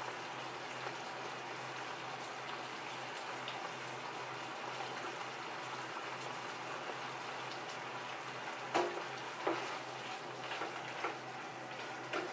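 Shrimp sizzling steadily in an oiled frying pan on the stove. A few light clicks and knocks, from the pan and a spatula, come in the last few seconds.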